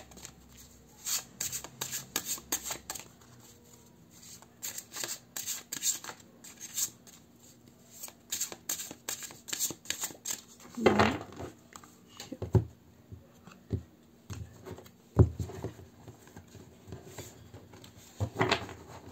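Tarot cards being shuffled by hand, stiff cards slid and dropped onto the pile in quick, irregular clicks and slaps, with a few louder knocks now and then.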